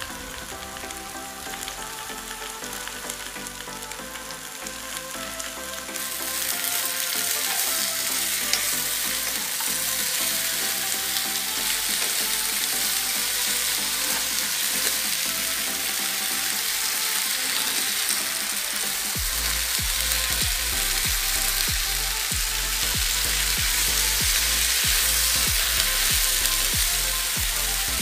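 Bitter melon slices sizzling in hot oil in a frying pan while being stirred with chopsticks; the sizzle gets louder about six seconds in, with light knocks of the stirring in the later part.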